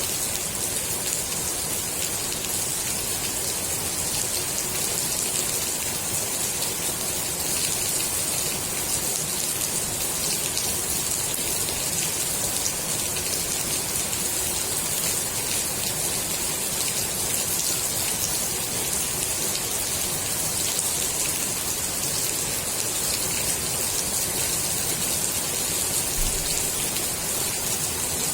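Steady rain falling onto the water of a swimming pool, a dense even patter of drops with a bright hiss.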